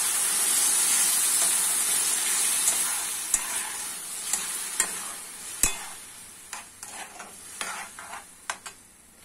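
Chopped onion, carrot and bell pepper sizzling in oil in a metal pan with fresh tomato just stirred in. The sizzle gradually dies down, while a spoon stirring the mixture clicks and scrapes against the pan several times.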